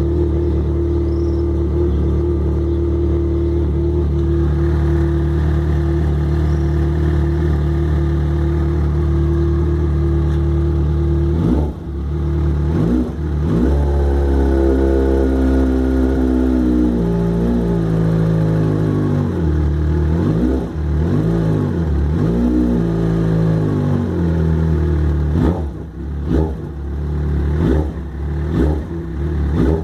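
Yamaha XJ6's inline-four engine idling steadily, then revved up and down several times from about twelve seconds in, ending with a few quick throttle blips. This is the engine whose owner reports a 'tec tec' ticking that is strong at cold start and fades as it warms.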